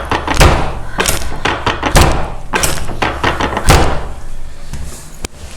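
Chiropractic adjustment of the shoulders, chest and ribs: three heavy thumps about a second and a half apart, with lighter taps and clicks between them.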